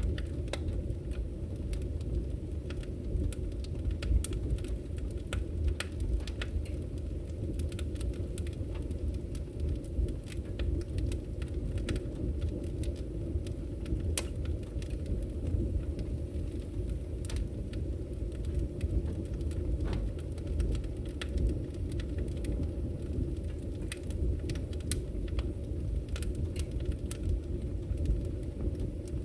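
Wood fire burning in a fireplace: a steady low rumble of flame with sharp crackles and pops at irregular intervals.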